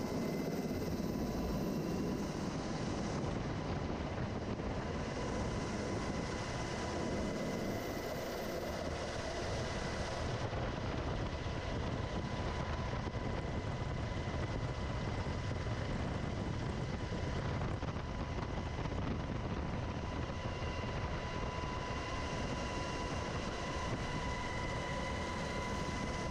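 UH-60 Black Hawk helicopter running: a steady, continuous rush of rotor and turbine noise with a steady high whine running through it.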